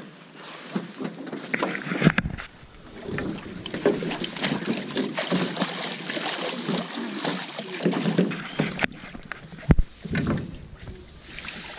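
Water splashing and sloshing at the side of a drift boat while a landed steelhead is handled, with scattered knocks against the boat; a sharp knock about two seconds in and another near ten seconds in.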